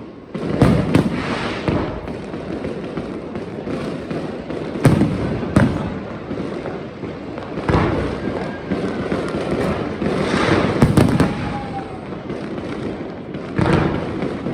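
Fireworks display: aerial shells bursting with sharp bangs every one to three seconds, over continuous crackling and rumbling from further bursts, with a faint whistle near the middle.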